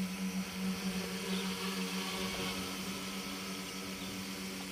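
A radio-controlled tricopter's three electric motors and propellers running in flight, a steady buzzing hum.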